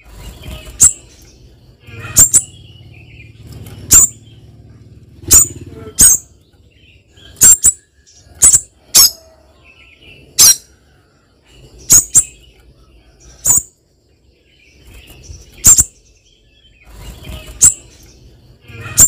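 Spiderhunter giving short, sharp, high-pitched calls, singly or in quick pairs, about every second or two.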